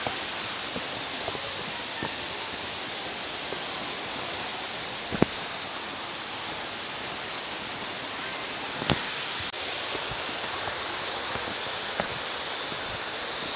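Waterfall rushing steadily, an unbroken hiss of falling water, with a few brief sharp clicks about five and nine seconds in.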